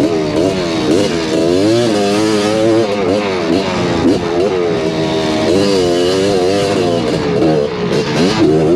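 Honda ATC250R three-wheeler's two-stroke single-cylinder engine burping along at low revs, its pitch rising and falling with short blips of the throttle.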